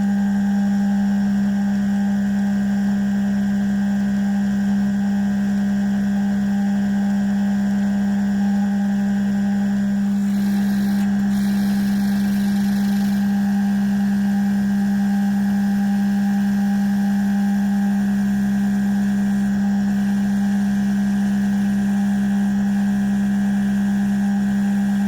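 Benchtop mill-drill running steadily with a strong, even hum while cutting a hole through a cast part. A slightly harsher cutting hiss joins in about ten seconds in for a few seconds.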